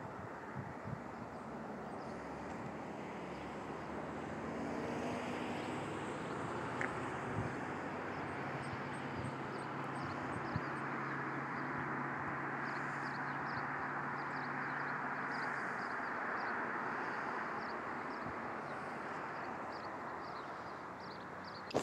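A vehicle's steady running noise, growing louder mid-way and easing off near the end.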